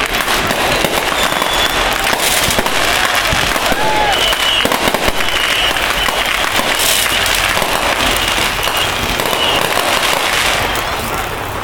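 Aerial fireworks bursting overhead in a dense, continuous run of crackling and popping, with crackling-star effects going off one after another.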